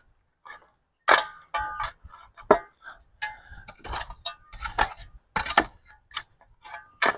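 Irregular sharp knocks and metallic clinks, about a dozen over several seconds, some with a brief ring, typical of tools and gate hardware being handled and struck.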